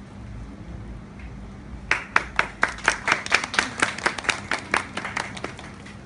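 Hand clapping: a quick run of sharp, distinct claps, about five a second, starting about two seconds in and dying away over some three and a half seconds.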